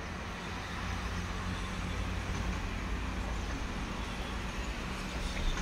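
Steady outdoor background noise: a low rumble under an even hiss.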